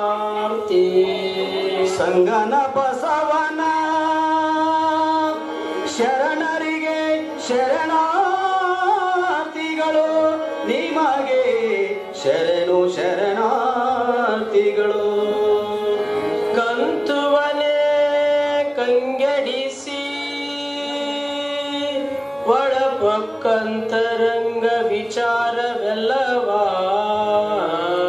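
Devotional song: a man singing a slow melody in long, held, ornamented notes, accompanied by a harmonium.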